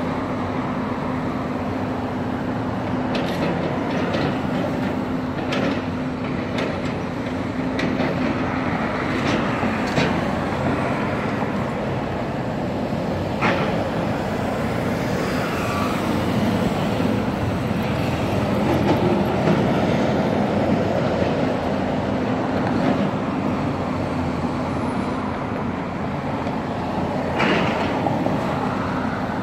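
Road traffic passing close by: cars, then a city bus going past about halfway through, the loudest stretch. Underneath, a steady engine hum and occasional sharp knocks from a hydraulic excavator working a demolition rubble pile.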